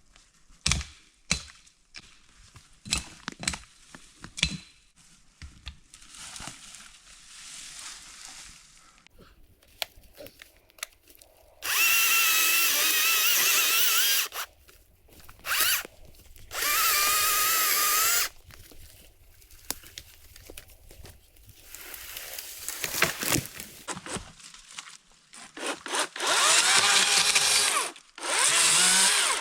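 A battery-powered tool runs in three bursts of a few seconds each, its motor whine wavering as it bites, after a few sharp knocks near the start.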